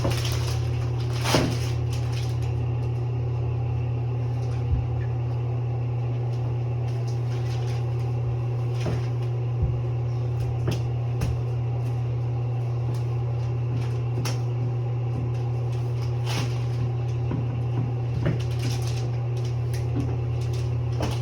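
A steady low hum throughout, with scattered light knocks and clunks from a toilet being handled and set down over its floor bolts.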